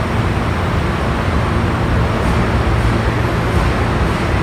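New York City subway train creeping slowly into the station: a steady rumble of wheels and traction motors with a low hum underneath.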